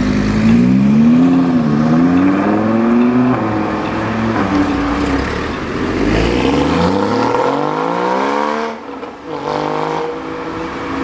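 A high-performance car's engine accelerating hard, its pitch climbing in several runs with short dips between them. The engine sound falls away abruptly a couple of seconds before the end, leaving a lower steady tone.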